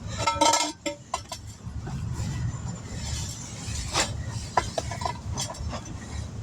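Handling noise while a tire's bead is wiped clean with a rag: a cluster of light clinks about half a second in, then scattered sharp ticks and knocks over a low rumble.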